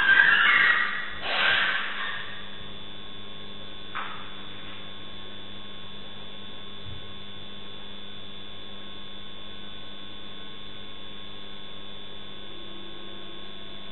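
A dog yelping and screaming in distress as a leopard seizes it. The cries are loud for the first two seconds, with one fainter cry about four seconds in. After that only a steady electrical hum remains.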